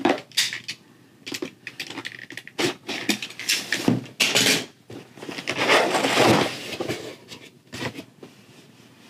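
Cardboard shipping box being cut open with a box cutter and its lid flaps pulled apart: irregular scrapes, clicks and rasping cardboard, with the longest rasps about four and six seconds in.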